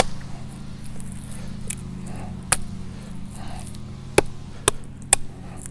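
A Pittsburgh composite-handled hatchet chopping into a branch of a fallen conifer: a sharp strike at the start, another about two and a half seconds later, then a quick run of three near the end. Behind the strikes, a steady low engine drone from distant lawn mowers.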